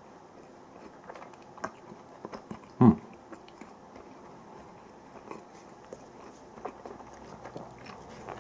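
A person chewing a mouthful of canned mackerel: quiet, scattered mouth clicks, with one brief louder sound about three seconds in.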